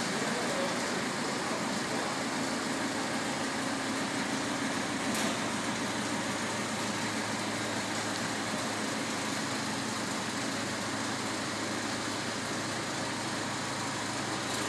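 Diesel engine of a Manitou telescopic handler running steadily as the machine moves off, with a single brief click about five seconds in.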